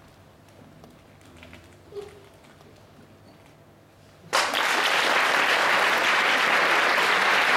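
Audience bursting into loud, steady applause a little over four seconds in, after a quiet stretch broken only by a few faint knocks.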